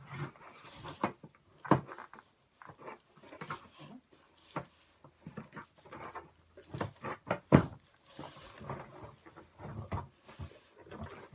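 Irregular clicks, knocks and rustling of skeleton prop parts being handled and fitted together, with one loud knock about seven and a half seconds in.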